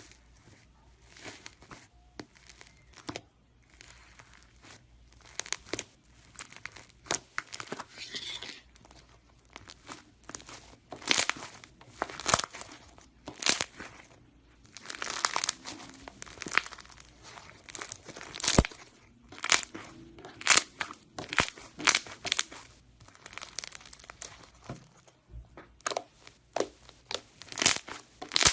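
Crunchy iceberg slime being pressed and squeezed by hand, its hardened crust crackling and crunching in irregular bursts. The crackles are sparse at first and come thicker and louder after about ten seconds.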